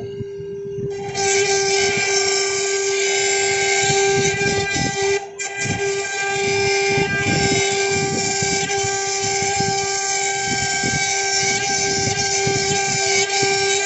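CNC router spindle whining at one steady high pitch. About a second in, a loud hissing noise joins it, breaks off briefly around five seconds in, then continues until near the end.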